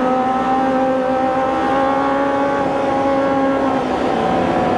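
Kawasaki ZX25R inline-four engine, bored up to 300cc, running hard at a nearly steady pitch as the bike is ridden through a corner, over a rush of road and wind noise.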